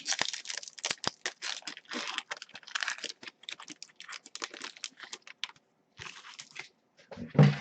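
Trading card pack wrapper crinkling and tearing as a pack is opened, with cards handled and slid against each other. A quick run of rustles and clicks thins out after about five seconds.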